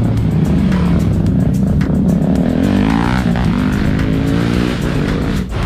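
Motorcycle engines revving as sport bikes ride past, with a modified car's engine running close by. The engine note rises around the middle.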